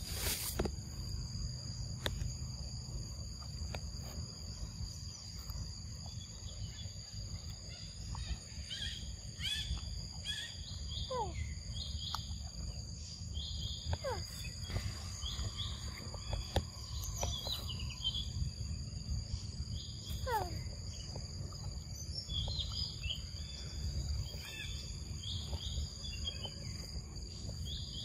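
Tropical forest ambience: insects holding two steady high-pitched tones, birds chirping, and a few calls that slide down in pitch, over a constant low rumble.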